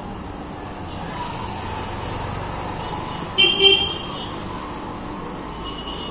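A motorcycle engine runs as it passes along a narrow street, over a steady hum of traffic. A vehicle horn gives two short toots about three and a half seconds in.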